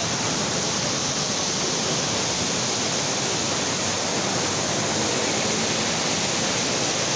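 A river in full monsoon flood: a steady rush of turbulent floodwater surging past a bridge.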